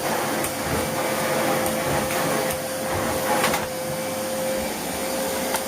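Hoover Whirlwind vacuum cleaner running steadily, a hiss of airflow with a steady motor whine, broken by a few sharp clicks.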